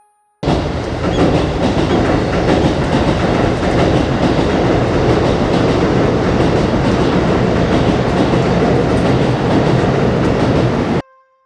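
Train passing on an elevated track directly above the ceiling: a loud, steady rumble and rattle of wheels on rails that starts abruptly about half a second in and cuts off suddenly just before the end.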